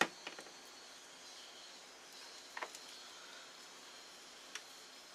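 A few faint clicks and taps of multimeter test probes against a coax connector, near the start, about two and a half seconds in and near the end, over a low hiss. No continuity beep sounds, since there is no continuity between the center conductor and the shell.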